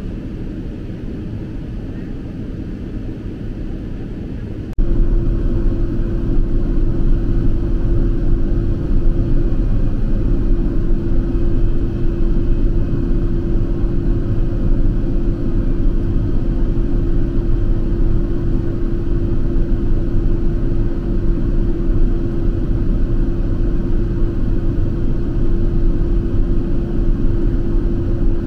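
Boeing 777-300ER cabin noise on descent: a steady rumbling jet and airflow noise. It steps up suddenly about five seconds in, and a steady droning tone runs on top of it from then on.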